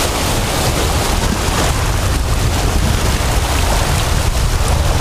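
Surf washing and foaming over lava rocks at the water's edge, a continuous rushing hiss, with wind buffeting the microphone in a heavy low rumble.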